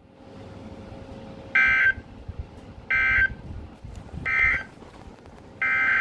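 NOAA Weather Radio SAME digital data tones: three short, identical buzzy bursts about a second and a half apart, the end-of-message code closing the tornado warning just read. Near the end a longer burst of the same tones begins, the header of a new alert. A faint hiss of radio reception lies under them.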